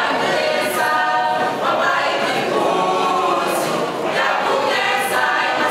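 Mixed choir of women's and men's voices singing a cappella, holding long notes.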